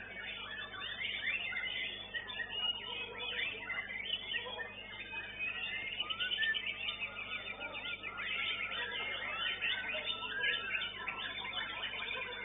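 White-rumped shama (murai batu) singing continuously: a fast, varied stream of quick rising and falling whistles and chirps, heard through a CCTV camera microphone.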